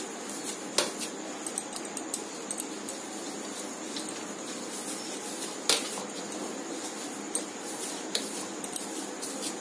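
Fresh chhana being kneaded by hand on a metal plate: a soft steady rubbing and pressing, with scattered sharp clicks and clinks against the metal. The two loudest clicks come about a second in and near six seconds in.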